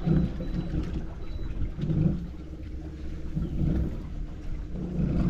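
Wind buffeting the microphone: an uneven low rumble that swells and fades in gusts.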